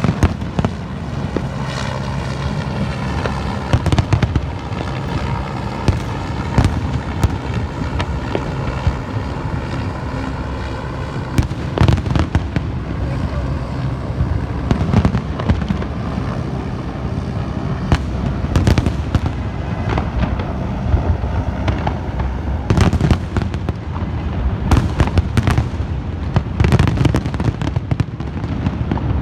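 Fireworks going off without let-up: many sharp bangs and crackling pops, irregular and often in quick clusters, over a continuous din.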